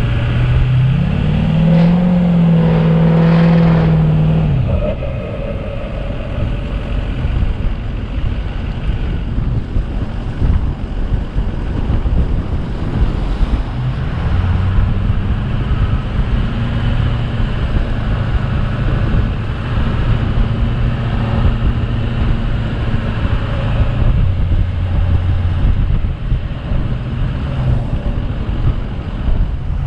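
A vehicle engine driving along. It revs up about a second in and holds until about four seconds, then eases off, and runs steadily under load again from about fourteen seconds.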